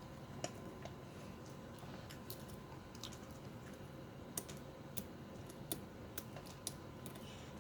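Lock pick working the serrated pins of a pin-tumbler lock: faint, irregular light clicks, roughly one a second, as the pins are lifted and bind.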